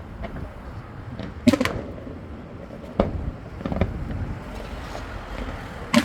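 Fireworks going off: a quick double bang about a second and a half in, another bang about three seconds in, and one more at the end, over a steady low background rumble.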